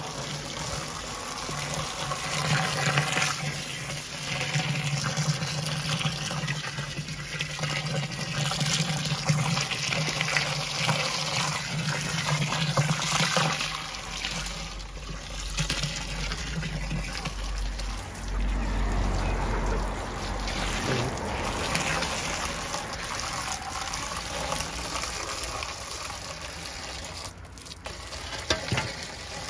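Water from a garden hose pouring into a plastic drum of chicken manure, splashing and churning as the drum fills, with a low steady hum underneath for about the first half.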